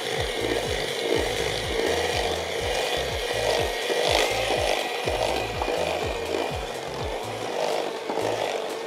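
Electric hand mixer running with a steady motor whine, its beaters churning thick cake batter in a stainless steel bowl as flour is beaten in.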